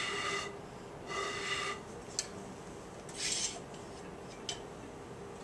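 Metal scraping and rubbing, three short rasping strokes with a couple of sharp clicks, as the resonance tube's metal water reservoir can is shifted on its stand rod to raise and lower the water in the tube. A faint steady tone runs underneath.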